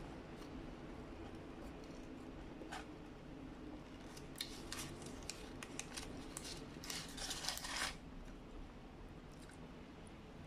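Paper burger wrapper crinkling as it is handled and pulled away from the burger, with faint chewing. The crackle is thickest about seven seconds in.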